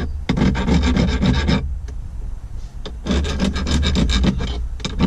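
Hand file rasping across the freshly cut metal end of a Jeep Wrangler JK automatic shifter shaft, deburring the sharp edges. It goes in two spells of quick strokes with a pause between them.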